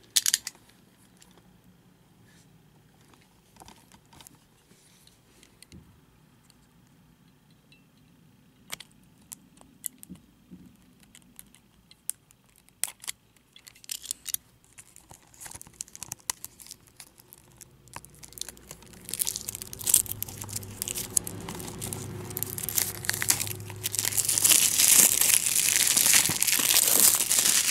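Plastic shrink wrap being stripped off a Blu-ray case. Scattered small clicks and scratches come first; from about two-thirds of the way in there is continuous loud crinkling and tearing, loudest near the end.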